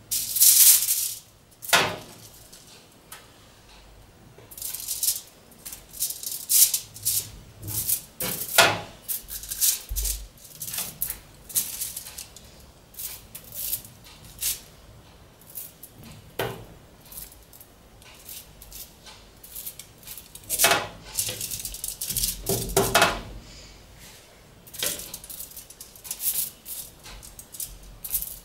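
Metal spoon scraping sticky oat dough out of a glass bowl and dropping it onto a foil-lined baking tray: a run of short scrapes, foil crinkles and clinks, with a few sharper knocks about a second in and again past the middle.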